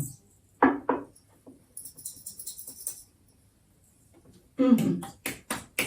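Granulated sugar being shaken from a container over a hollowed-out black radish: a brief hiss of falling granules, then a quick run of sharp taps and shakes near the end as the sugar won't flow freely.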